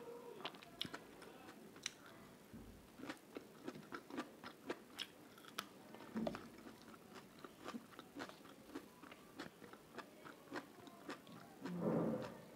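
Close-miked chewing and mouth sounds of someone eating rice and vegetables with her hands: a steady run of short wet clicks and smacks, with a longer, louder mouth sound near the end.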